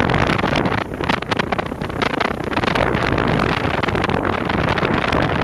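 Loud wind buffeting the microphone, a rough rushing noise that flutters up and down.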